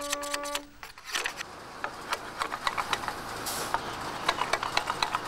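Machete blade scraping along a bamboo fishing pole in short, repeated strokes, a few a second, shaving off splinters and rough spots.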